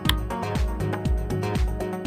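Background music: an electronic track with a steady driving beat.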